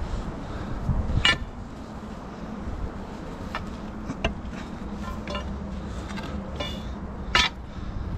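Steel pry bar clinking against limestone rock several times, each strike a short sharp knock with a brief metallic ring; the loudest come about a second in and near the end. A low wind rumble on the microphone runs underneath.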